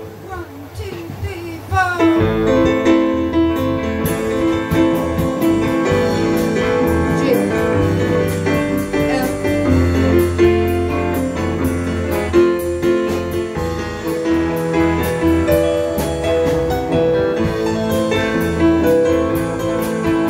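Live band music led by a Roland RD-300GX stage piano, which plays alone at first and is joined about two seconds in by a low bass line, with a steady cymbal tick from about four seconds.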